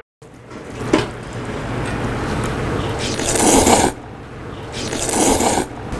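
Chopsticks scraping and stirring spicy mixed noodles in a stainless-steel bowl, then the noodles being slurped loudly twice: once about three seconds in, the loudest, and again about five seconds in.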